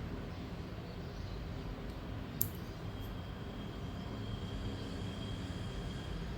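Clipper-blade sharpening machine's electric motor running with a steady low hum, with one sharp click a little over two seconds in and a faint thin whine joining about three seconds in.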